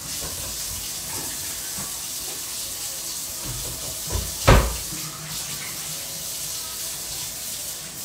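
Kitchen tap running into the sink, a steady hiss of water, with a single dull thump about halfway through.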